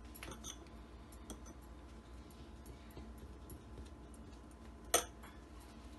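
Faint small clicks and ticks from hands separating thin spring-roll wrapper sheets and working a spoon of flour paste, with one sharp click about five seconds in.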